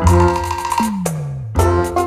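Background music: a held chord with a low note sliding downward about a second in, then the rhythm of struck notes and drums comes back in.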